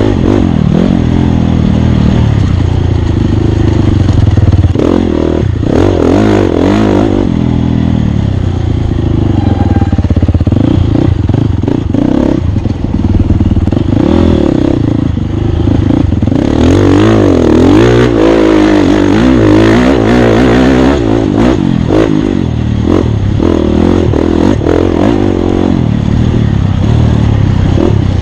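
Off-road racing motorcycle engine running hard, its pitch rising and falling again and again as the rider opens and closes the throttle over the course.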